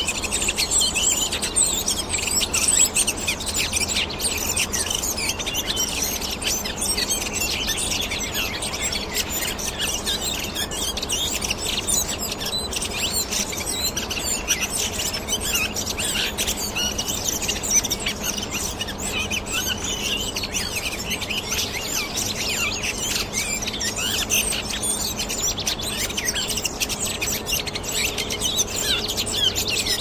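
Redwing flock chattering: many short, high chirps overlapping without pause.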